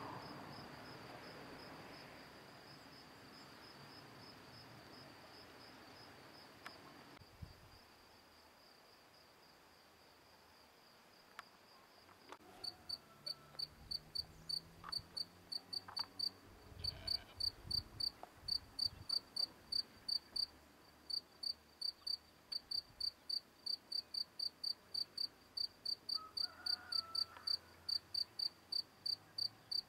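Cricket singing: a steady high trill for the first dozen seconds or so, then loud, regular high chirps about three a second.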